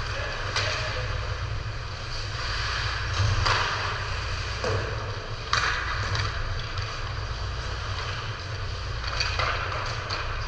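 Background noise of a team game in play: a steady low rumble under a constant hiss, with a few sharp scrapes and knocks, the loudest about 3.5 and 5.5 seconds in.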